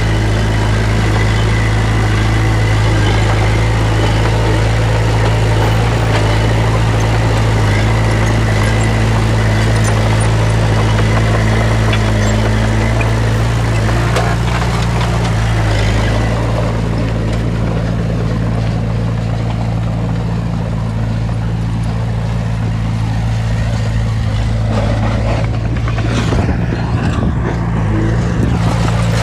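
Heavy earthmoving machine's diesel engine running steadily with a deep, even hum. The rougher, higher noise over it dies down about halfway through while the engine keeps running.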